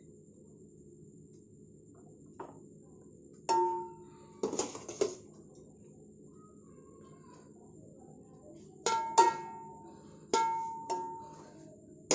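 A metal utensil knocking against a large aluminium cooking pot several times while par-cooked rice is layered into it for a dum biryani. Each knock rings briefly with a clear metallic tone, in two groups of knocks with a pause between them.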